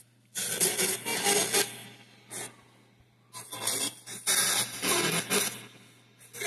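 Roberts R9921 ghost box sweeping stations and played through a loudspeaker: bursts of rasping static and chopped radio fragments in two long stretches, with a short burst between them, over a steady low hum. The uploader hears the words "I believe" in them.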